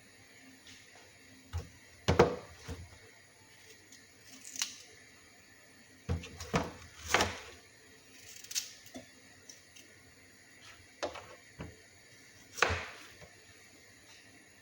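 Kitchen prep sounds: about ten light knocks and clicks of utensils and food being handled, at uneven intervals, the loudest about two seconds in.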